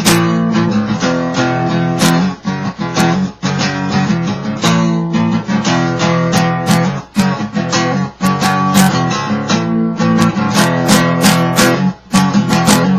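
Guitar strummed with a pick, a continuous run of chords with sharp attacks that stops suddenly at the end.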